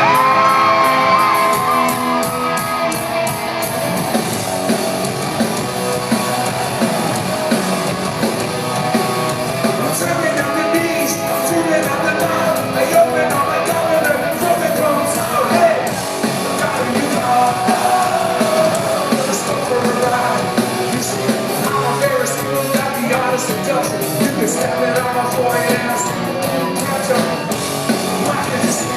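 Live rock band playing with singing in a large, reverberant concert hall, with some yells from the crowd.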